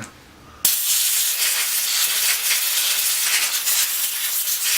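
Compressed air blowing from an air compressor's blow gun in one steady, loud hiss that starts about half a second in, blasting mud off the engine around the spark plug.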